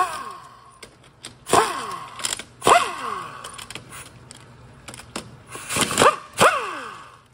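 Handheld air-powered wrench with a socket backing out valve body bolts on a transmission: about five short bursts, each starting sharply and falling in pitch as it dies away.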